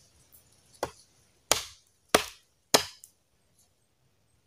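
Four chops of a machete into a thin wooden pole, trimming it: a lighter blow about a second in, then three hard strikes about 0.6 seconds apart.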